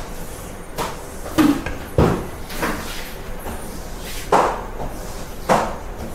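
Steel kitchenware knocking and clattering, about half a dozen short sharp knocks at irregular intervals over a low steady background.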